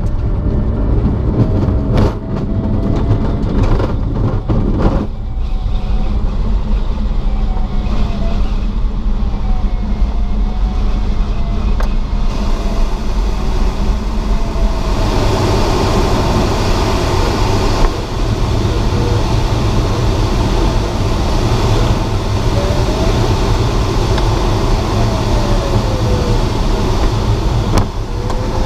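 Steady rush of air and low rumble inside a glider cockpit during takeoff and climb, with the canopy partially open. A few sharp knocks come in the first seconds of the ground roll, and the air noise grows brighter about halfway through. A faint thin tone wavers up and down underneath.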